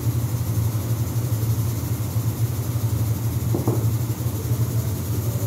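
Steady low mechanical hum of a household machine running, with a brief handling sound about three and a half seconds in.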